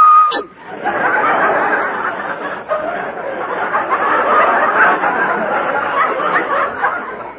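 A short, loud, high-pitched hiccup right at the start, followed by a studio audience laughing for about six seconds, dying down near the end. The sound is from an old radio broadcast recording, with no high treble.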